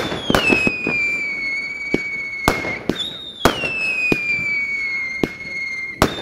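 Whistling fireworks at a display: three long whistles, one about every three seconds, each starting high and sliding down in pitch, among sharp firework bangs.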